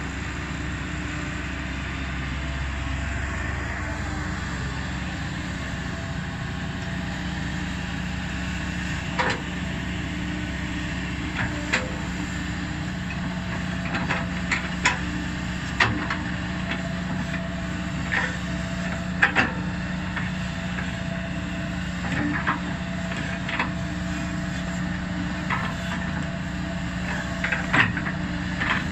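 Kobelco SK200 hydraulic excavator at work: its diesel engine runs steadily, with scattered sharp clanks and knocks from about nine seconds in.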